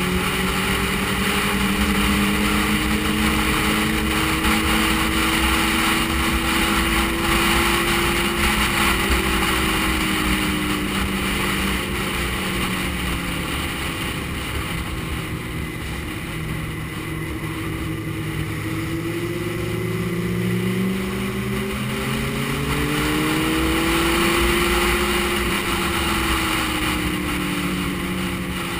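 Motorcycle engine running at road speed, with wind rushing over the microphone. The engine note drops about ten seconds in, climbs again about twenty seconds in, then eases off near the end.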